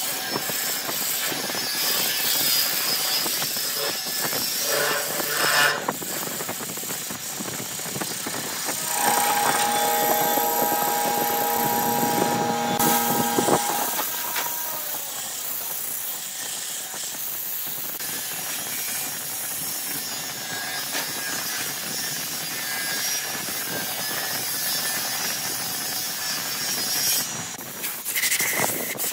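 Wood lathe spinning a vase while a gouge cuts the rim, a rough scraping with shavings coming off. A steady pitched whine runs for a few seconds near the middle. Then sandpaper is held against the spinning wood, a softer steady rasp.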